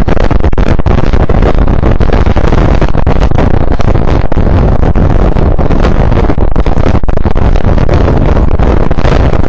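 Hurricane wind blowing hard over the microphone: a loud, unbroken rush of noise, heaviest in the low end.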